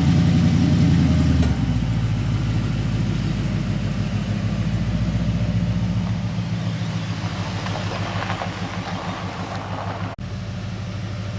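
Coyote 5.0 V8 in a first-gen Ford Lightning pickup running loud at high revs, then dropping suddenly about a second and a half in to a steady idle that grows fainter.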